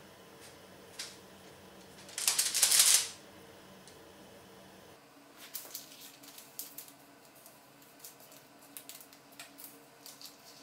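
Baking paper rustling and crinkling while cookie shapes are cut from rolled gingerbread dough with metal cutters and the dough scraps are peeled away. There is a loud rustle about two seconds in, then a run of small irregular crinkles and ticks.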